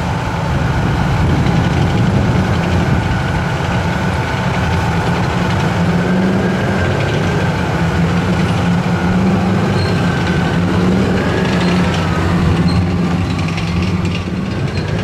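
A column of Japan Ground Self-Defense Force tanks with their diesel engines running, a steady heavy low rumble.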